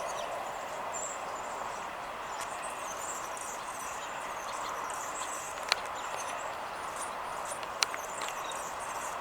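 Small birds chirping and twittering high in pitch over a steady outdoor background hum, with two sharp clicks, about six and eight seconds in.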